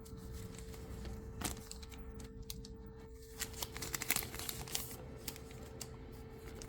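Trading cards and foil booster-pack wrappers being handled: scattered soft clicks, slides and crinkles, over a faint steady hum.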